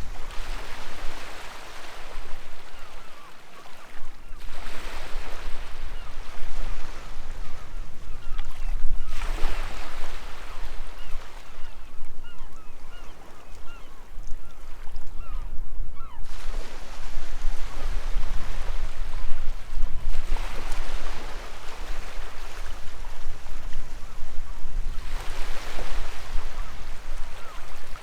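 Waves washing in on the shore, each one surging up and fading, about every four to five seconds, with gulls calling repeatedly over them, most often in the middle stretch.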